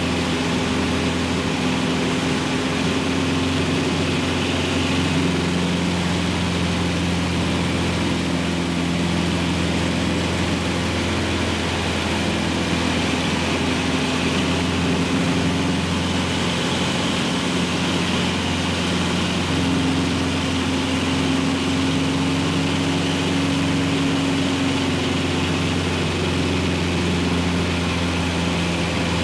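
Cessna 150's four-cylinder Continental O-200 engine and propeller droning steadily, heard from inside the cabin, with small shifts in pitch now and then.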